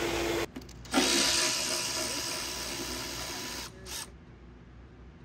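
Power tool running in two stretches split by abrupt cuts, then stopping about four seconds in, leaving only quiet workshop sound.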